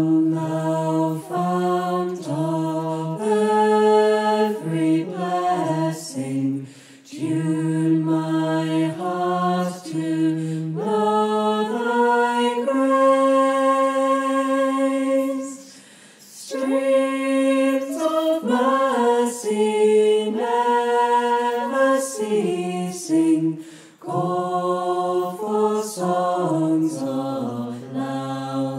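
Mixed choir of men's and women's voices singing a cappella in several parts, holding chords in long phrases with brief pauses between them.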